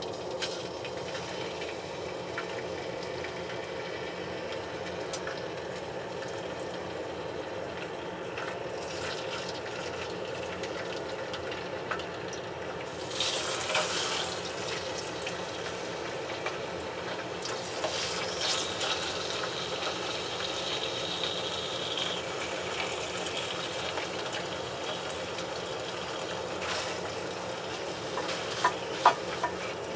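Thin slices of soy-and-pineapple-marinated beef frying in oil in a pan: a steady sizzle that grows louder about 13 seconds in and again around 18 seconds. A few sharp knocks near the end.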